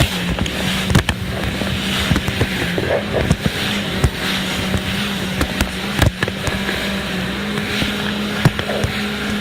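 Jet ski engine running steadily under way with a constant hum, broken by frequent short sharp knocks.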